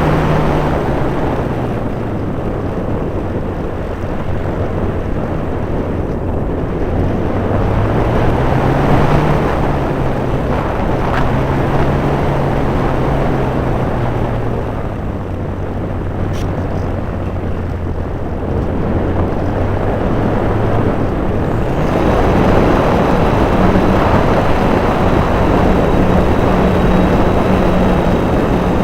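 Radio-controlled model Cessna 400 Corvallis flying, its motor and propeller tone rising and falling in pitch, then holding steady at a higher pitch for the last several seconds.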